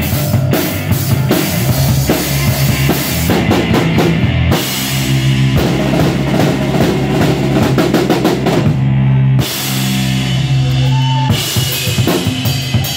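Live rock band playing electric guitars over a drum kit, with bass drum and snare hits under sustained chords. About four and a half seconds in the drumming drops away for a moment while held chords ring, then the band plays on.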